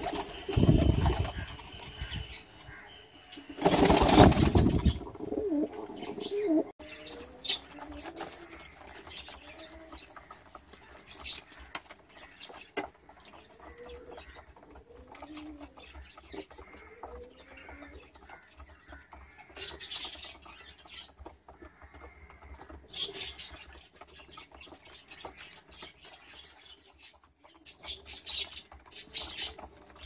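Domestic pigeons cooing, with two loud flurries of wing flaps in the first few seconds. A run of wavering coos follows, then a few short rustling bursts near the end.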